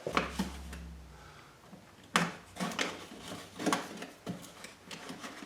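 Scattered clicks and knocks, about half a dozen, of hard objects being handled and set down while rummaging for a knife, with a low hum through the first second.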